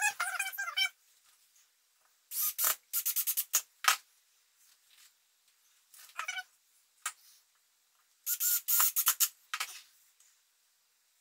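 Clusters of clicking and rattling as the wooden boards of a Warre hive quilt box and a bottle of wood glue are handled, with a brief high, wavering call right at the start.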